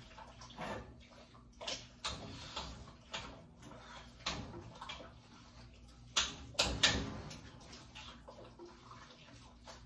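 A spoon stirring raw chopped meat, onion and beer in a crock pot: wet squelching and sloshing with irregular scrapes and knocks against the pot, loudest about six to seven seconds in.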